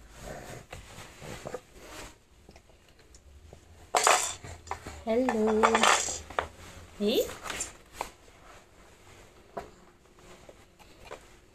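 A hard plastic baby toy clattering and knocking against a wooden floor, loudest about four to six seconds in. Short voice sounds come with it, one of them rising in pitch.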